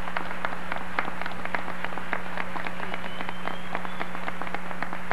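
Audience applauding: a dense, irregular patter of hand claps, with a steady low electrical hum underneath.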